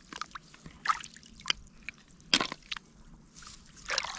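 Hands sloshing and splashing in shallow muddy paddy water while groping through the mud for snails: a run of short, irregular splashes and drips.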